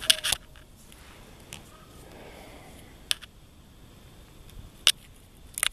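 A few short, sharp clicks: a cluster at the start, then single ones about three seconds in, near five seconds and just before the end, over a quiet background.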